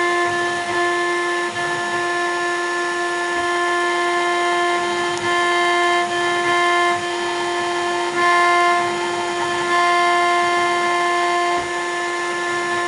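A 1.5 kW CNC router spindle running at a steady high whine while its cutter engraves an acrylic cylinder, with a cutting hiss that swells and dips slightly as the bit works along the piece.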